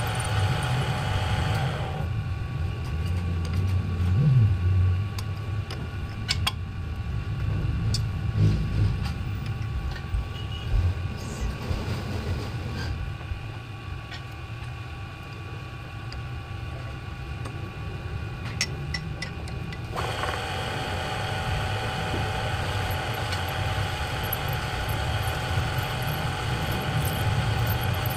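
A drill press motor runs with a steady whine while its bit drills out a broken bolt in an aluminium engine casing. The whine cuts out about two seconds in, leaving a low rumble with scattered clicks and scrapes, then starts again about twenty seconds in.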